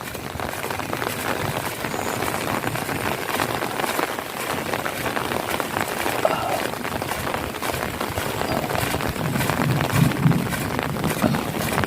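Heavy rain falling steadily on the ground and puddles, a dense patter of drops splashing. A low rumble swells in and out over the last few seconds.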